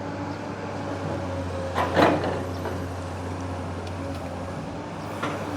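Heavy diesel machinery running steadily with a low, even engine hum, with a short scraping clatter about two seconds in.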